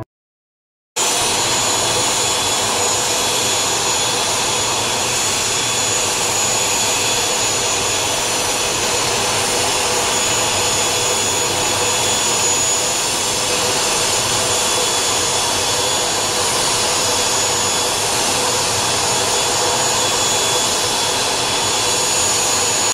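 ATR 42-500's turboprop engines and propellers running steadily at low taxi power: an even hiss with a faint high whine, starting about a second in.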